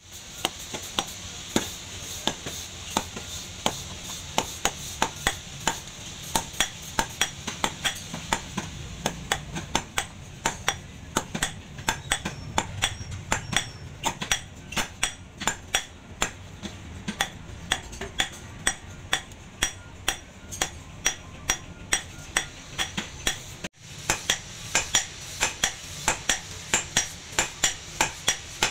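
Hammer blows on red-hot leaf-spring steel on a steel post anvil, forging a cleaver blank: steady strikes about two to three a second, each with a bright metallic ring. A brief gap about four-fifths of the way through, then the blows go on.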